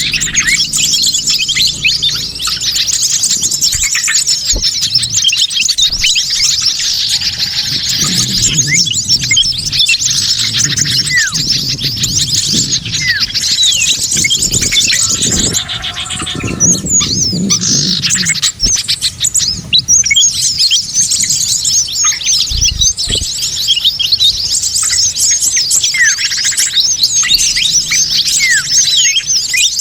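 A dense, busy chorus of many small birds chirping and twittering at once, with rapid overlapping high calls and quick pitch sweeps. This is a mixed-species bird-lure recording made to attract wild small birds.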